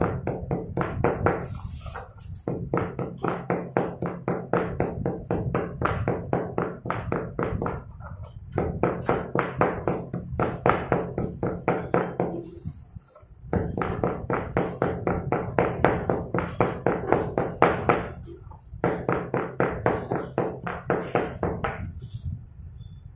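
Stone pestle pounding slate pencil pieces into powder in a stone mortar: a rapid, steady run of dull knocks, pausing briefly every few seconds.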